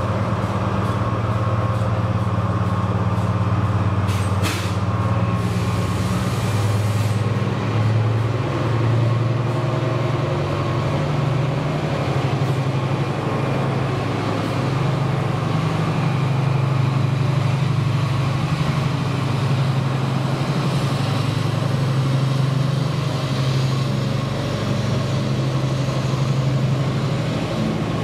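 Freightliner Class 70 diesel locomotive's V16 engine droning steadily as it hauls a container train slowly past, its pitch shifting slightly. Container wagons rumble along behind it, with a short sharp noise about four and a half seconds in.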